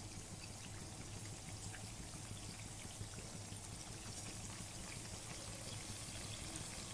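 Chakli made of rice flour and chickpea flour sizzling in hot oil: a steady frying hiss with many small scattered crackles.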